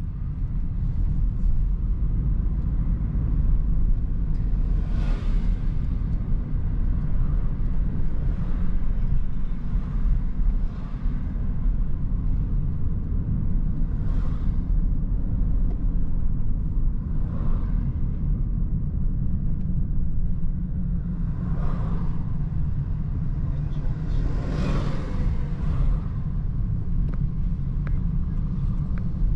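Steady low road and engine rumble of a car driving on a city street, heard from inside the car. About six brief swells of noise come as other vehicles pass.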